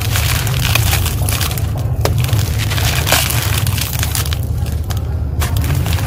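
Dry, crumbly concrete chunks crushed by hand: dense gritty crunching and crackling as the pieces break apart and grit and sand fall into a plastic basket, over a steady low rumble. The crackle briefly thins out about five seconds in.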